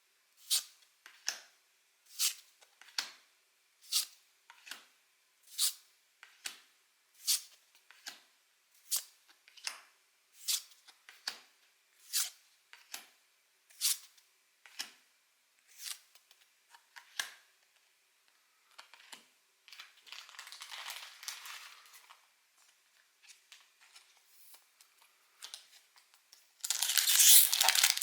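Trading cards slid one by one off the top of a stack in the hand, a short crisp swish roughly every second with the strokes alternating louder and softer. Near the end comes loud crinkling of a foil booster-pack wrapper.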